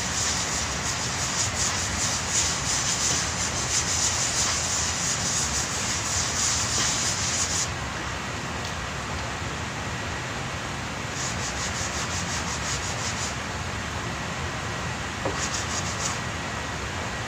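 Sandpaper on a sanding block being rubbed back and forth by hand over cured body filler on a vehicle fender, shaping the putty: quick rasping strokes for about eight seconds, then a pause, then two shorter bouts of strokes near the end, over a steady background hiss.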